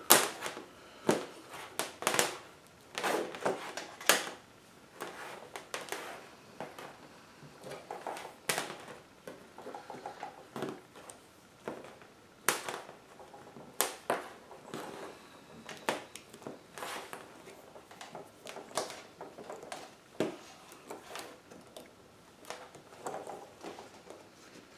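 Hands handling a K20A2 engine wiring harness and a loose length of plastic-insulated wire on a tabletop: irregular rustling with scattered sharp clicks as the wire is pulled along and pressed against the bundle.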